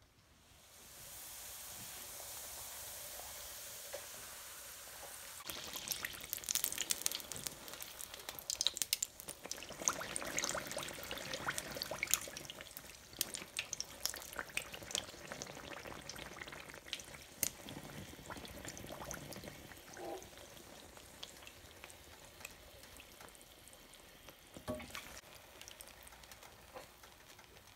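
Flour tortilla frying in shallow hot oil in a skillet: a soft hiss at first, then from about five seconds in a louder sizzle full of quick crackling pops, which slowly dies down.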